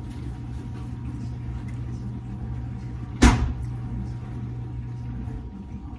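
A steady low hum that stops about five seconds in, with one sharp knock about three seconds in, like a container or cupboard door being knocked shut.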